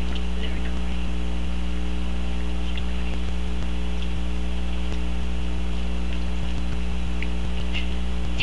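Steady electrical mains hum, the loudest thing throughout, with a few faint scattered clicks of a Chihuahua–rat terrier mix licking peanut butter and marshmallow cream off a glass plate.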